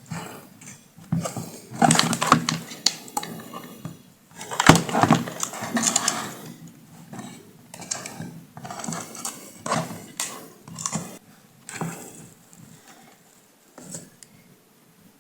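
Tools and small hard parts clicking, clinking and knocking during bench repair work, irregular, with one sharp knock about five seconds in. The handling grows sparse toward the end.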